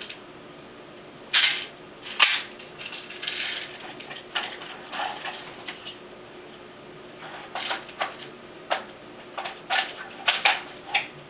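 Irregular clicks and rattles of plastic parts as an airsoft M8 rifle is handled and loaded, a fiddly job that keeps going wrong.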